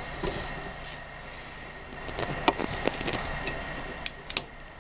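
Scattered small clicks and taps, with the rustle of a cloth rag, as a hand works inside an open microwave oven to grab the shattered lamp bulb. The sharpest clicks come about two to three seconds in and again just after four seconds.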